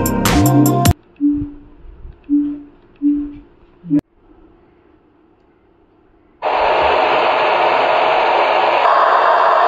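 Electronic music with heavy bass cuts off about a second in, followed by a few short low tones and a click. From about six and a half seconds a loud, steady hiss of test noise plays: the home-theatre amplifier's channel test sounding through the front-left speaker.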